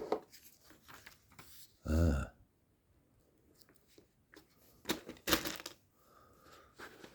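Plastic Lego Technic pieces being handled and pressed together: scattered light clicks and rustles, with a louder cluster of clicks about five seconds in. A short hummed vocal sound about two seconds in.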